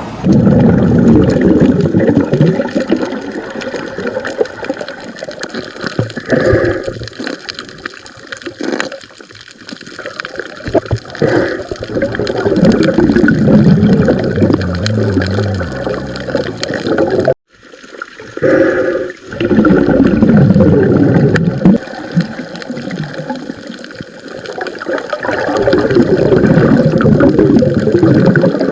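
Water sloshing and gurgling close to the microphone, with a sudden short gap about two-thirds of the way through.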